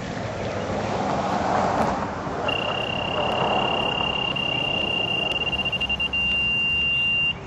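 Handheld gas detector's high-pitched alarm tone, steady at first, then beeping rapidly for about a second, then steady again before it cuts off near the end: the meter signalling hydrocarbon vapour over the treated gasoline spill. A rushing noise fills the first couple of seconds before the tone starts.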